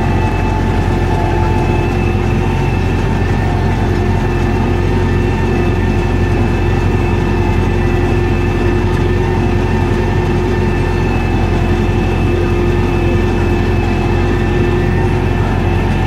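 Belarus 952.3 tractor's diesel engine running steadily under load while pulling a mounted reversible plough, a constant drone with a steady whine over it.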